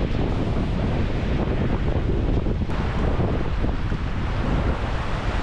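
Strong wind buffeting the microphone over waves breaking and washing up a sandy beach in a rolling swell.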